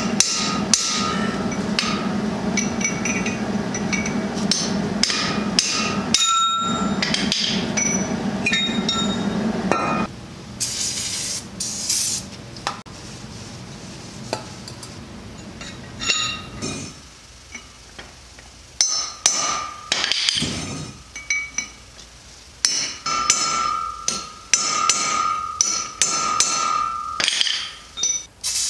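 Hammer and drift rapidly striking a steel bearing race inside a Mack semi truck drive-axle wheel hub, knocking the old race out, with sharp metallic ringing. The rapid hammering stops about ten seconds in. A brief spray hiss follows, then scattered, ringing hammer taps.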